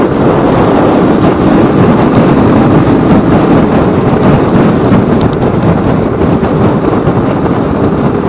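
Motorcycle riding along a road, heard from a camera mounted on the bike: a steady, loud rush of engine and wind noise.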